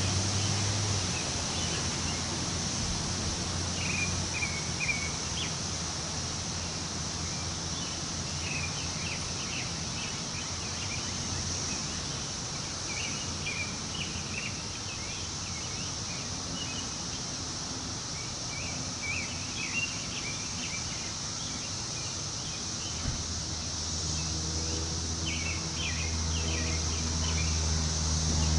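Woodland ambience: wind in the trees with scattered bird chirps over a steady high-pitched insect drone. A low hum comes in near the end.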